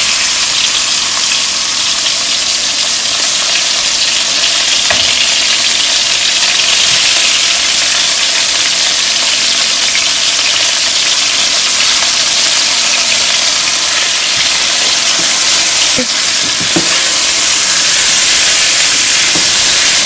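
Seasoned chicken breast frying in hot grease in a pot: a loud, steady sizzle, with a few small pops.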